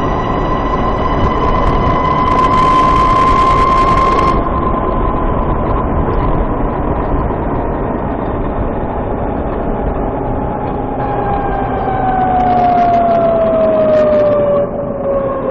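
VX1 motorcycle's transmission chirp, heard while riding as a pitched whine over wind and road noise. It holds steady for most of the time, then glides down in pitch over the last few seconds as the bike slows.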